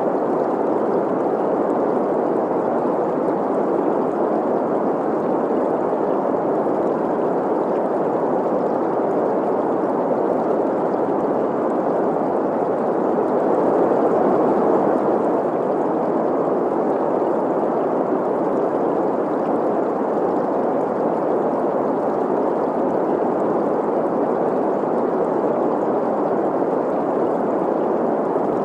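Steady green noise, a hiss centred on the middle frequencies, blended with the rush of a flowing stream, running evenly without breaks.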